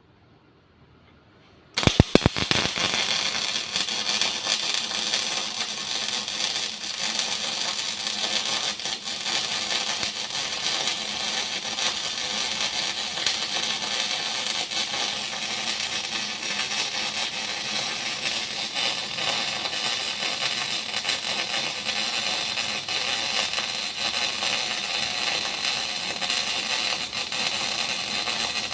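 Electric arc welding: the arc strikes about two seconds in with a few sharp cracks, then burns with a steady, loud crackling hiss.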